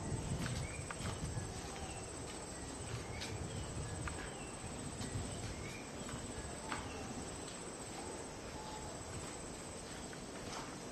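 Quiet outdoor railway platform ambience: a steady thin high-pitched tone runs throughout, with scattered short chirps and faint ticks, and a brief low rumble at the very start.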